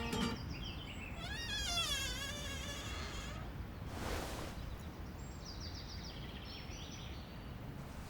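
Outdoor ambience: a low steady rumble with short, high chirping animal calls near the start and again in the second half, and a wavering call between about one and three seconds in. A brief hiss comes about four seconds in.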